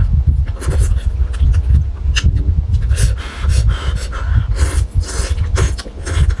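A person eating noisily: wet chewing and slurping with repeated short smacks and heavy breaths through the nose and mouth, typical of eating food that is still too hot.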